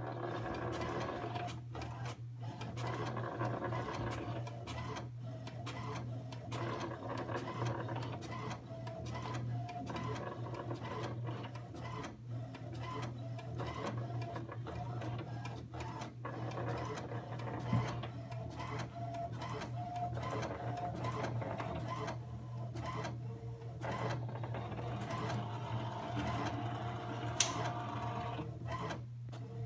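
HP DeskJet Ink Advantage all-in-one inkjet printer making a copy: its scanner carriage and print head run in a whirr broken by repeated passes as the printed page feeds out, over a low steady hum. There is a sharp click near the end.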